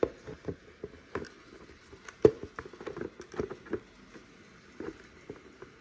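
Scattered light plastic clicks and knocks as the housing halves of a Harman Kardon Onyx Studio 3 speaker are handled and fitted back together. The sharpest knock comes about two seconds in.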